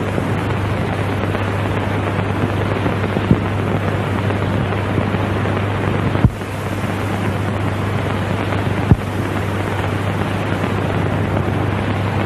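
Steady crowd noise of a packed football stadium, heard through an old, worn recording as an even roar with a low hum underneath. Three sharp clicks, about three, six and nine seconds in.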